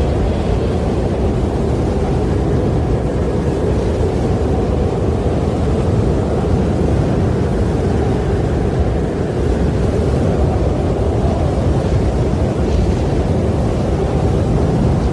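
Steady, low rushing wind with no gusts or breaks.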